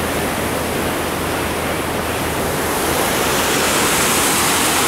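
Steady rush of fast, churning floodwater in a swollen creek below a bridge, growing a little louder and brighter about three seconds in.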